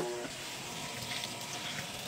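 Steady hiss of water running into a washing machine drum, with a brief steady tone at the very start.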